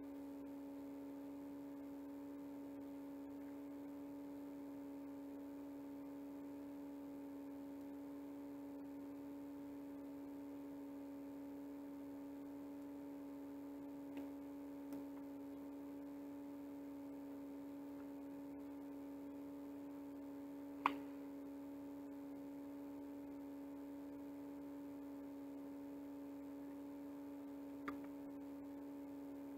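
Steady electrical hum at one fixed pitch in a quiet small room, with a few short clicks: two faint ones about halfway through, a sharper one about two-thirds in, and another near the end.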